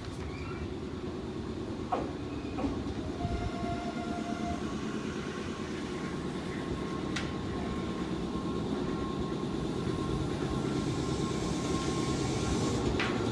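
Nankai electric train running on the rails: a steady rumble with a faint steady motor whine and a few sharp wheel clicks, growing gradually louder.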